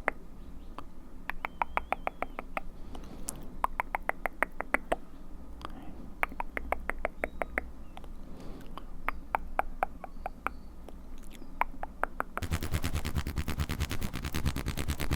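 ASMR mouth sounds close to the microphone: rapid wet clicking in bursts of about eight clicks a second, with short pauses between bursts. Near the end a louder, denser rhythmic sound starts suddenly.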